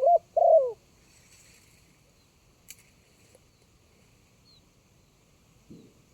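Spotted dove cooing close by: two loud coo notes within the first second. A faint sharp click follows a few seconds later, and a soft low thump comes near the end.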